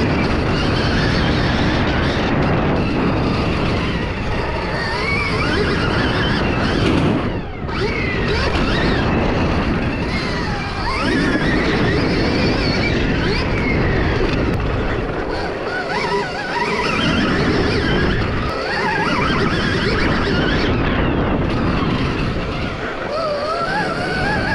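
Stark Varg electric dirt bike ridden hard: its electric motor's whine slides up and down with the throttle over a constant rush of wind and tyre noise.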